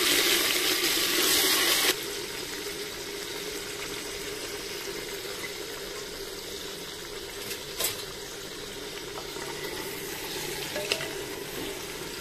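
Hot oil with whole spices sizzling hard in a clay handi. About two seconds in it drops suddenly to a quieter, steady sizzle of marinated mutton and onions frying in the pot, with a single click a little past the middle.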